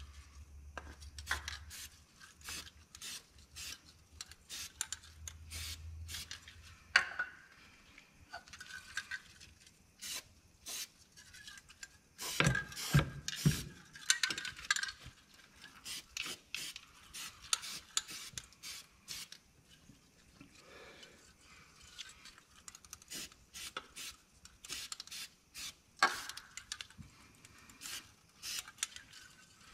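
Aerosol can of Magnaflux crack-detection developer being handled, shaken and sprayed in short bursts into a cylinder bore of a Toyota 1HD-T diesel block. It comes as irregular clicks and rattles, most dense about halfway through.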